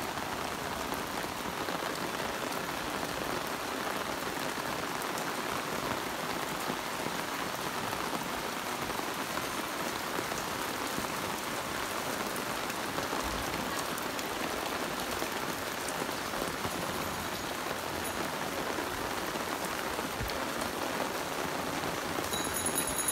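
Heavy rain falling steadily on a paved street, a continuous even hiss of rain on the wet road and surfaces.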